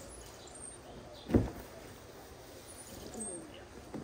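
A single low thump about a second and a half in, with a dove cooing near the end and small birds chirping in the background.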